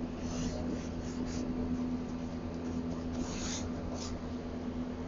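Soft swishing strokes of a paintbrush laying on white enamel paint, a few scattered strokes, over a steady low hum.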